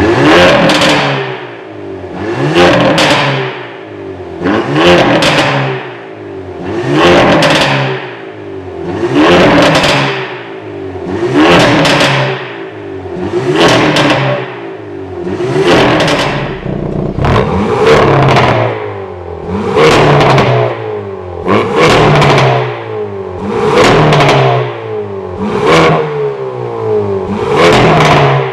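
Hyundai Kona N's turbocharged 2.0-litre four-cylinder revved repeatedly through a modified centre-pipe exhaust, about fourteen blips roughly two seconds apart, each rising then falling with a burst of popping and crackling as the revs drop. The crackle on the overrun is the 'popcorn' from the N mode, made louder by the centre-pipe modification.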